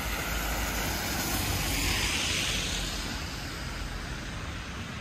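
Street traffic: a vehicle passes, its noise swelling to a peak about two seconds in and then fading, over a steady low rumble.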